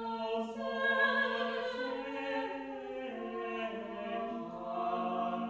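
Small mixed ensemble of women's and men's voices singing Renaissance sacred polyphony unaccompanied, several parts holding long, overlapping notes.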